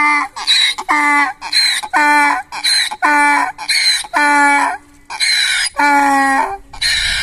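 A donkey braying: a run of hee-haws, about one a second, each a breathy, noisy in-breath followed by a pitched out-breath, with a brief break about two-thirds of the way through before the braying starts again.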